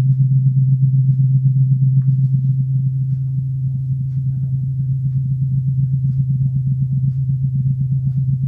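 Homemade bathtub lithotripsy device giving off a loud, steady low-pitched hum with a fast flutter, easing off slightly in level.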